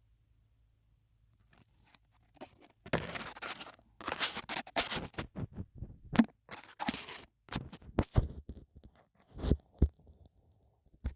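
Close-miked ASMR trigger sounds: irregular scratching, rustling and crackling strokes against the microphone, with a few soft thumps. They start a couple of seconds in, after near silence.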